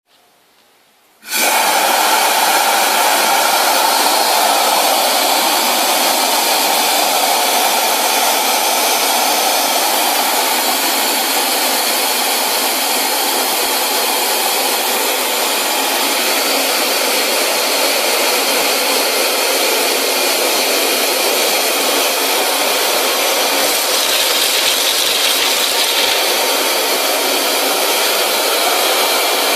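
Compressed-air-driven wet/dry industrial vacuum cleaner starting up about a second in and running with a steady, loud rush of air.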